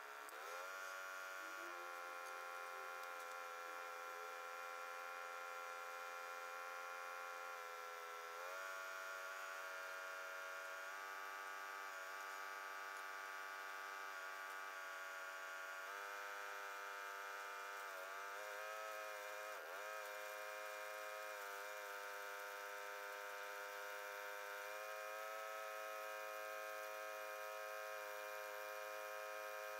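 Engine of a water-well drilling rig running steadily, heard as a faint, even hum. Its pitch dips briefly a few times, about 8 seconds in and again around 16 to 20 seconds.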